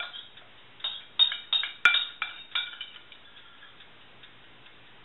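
A metal utensil clinking against a dish, about seven quick ringing taps in the first three seconds.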